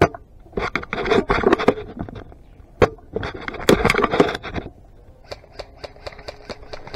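Dry brush, twigs and dead leaves crackling and scraping in two bouts of about a second each, as someone pushes through undergrowth, then lighter, regular ticking about four times a second.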